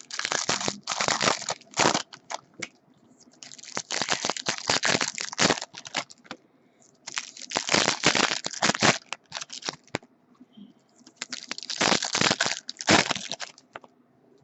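Foil trading-card pack wrappers crinkling as packs are torn open and handled, in about four bursts with short pauses between.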